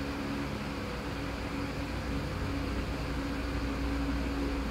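Steady machine hum, a low drone with a few constant tones over an even hiss, running unchanged throughout.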